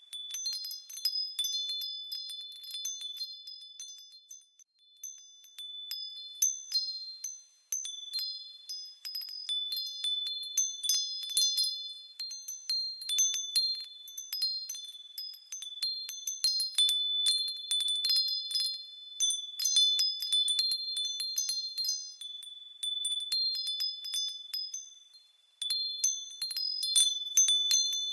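Wind chimes ringing: a cluster of high-pitched notes struck over and over in irregular flurries, with a few brief lulls where the ringing dies away.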